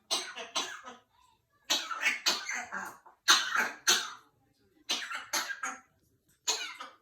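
African grey parrot coughing in short bouts of two to four coughs, about five bouts with brief silences between them. It is a mimicked cough, not a sign of illness.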